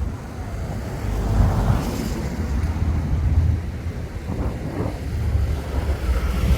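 Wind buffeting the microphone: a gusting low rumble that swells and eases.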